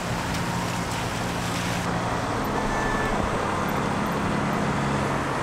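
Old Mercedes A-Class car driving at speed: steady engine and road noise.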